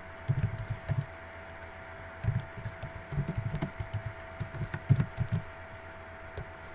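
Computer keyboard keystrokes, typed in short irregular bursts, over a steady faint hum.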